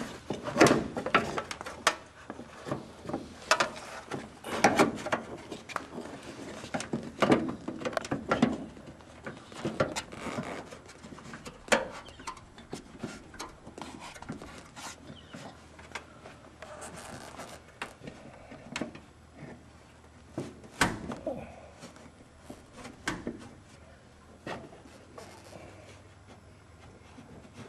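Irregular knocks, clicks and creaks from the crumpled aluminium leading-edge skin of a light aircraft's bird-strike-damaged wing being handled and pressed. They come thickly in the first half and thin out later, with one sharp knock past the two-thirds mark.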